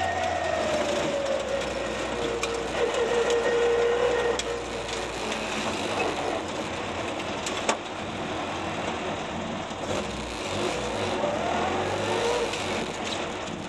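Ford Escort RS Mk2 rally car running slowly, heard from inside the cabin, with a whine that falls in pitch over the first few seconds as the car slows and rises again near the end. One sharp click just past halfway.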